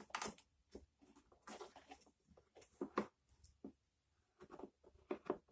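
Scattered light clicks and knocks of the plastic parts of a small cordless lawn mower being handled as its cutting-height adjustment is worked by hand, a few more in quick succession near the end.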